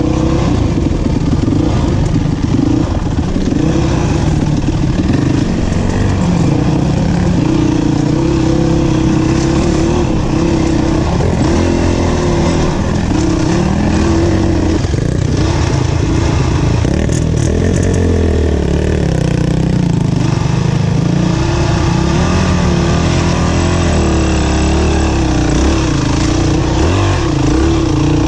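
Dirt bike engine running continuously as it rides a rough trail, its pitch rising and falling with the throttle, heard from on board the bike.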